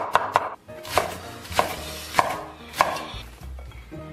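Chinese cleaver chopping a long green onion (scallion stalk) on a wooden cutting board. A quick run of chops comes first, then single, slower chops about every half second.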